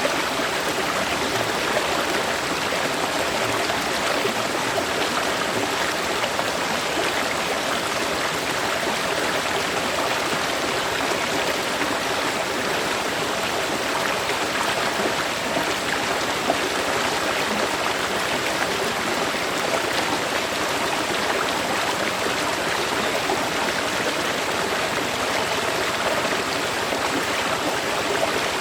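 River water flowing steadily, a constant even rushing with no breaks or changes.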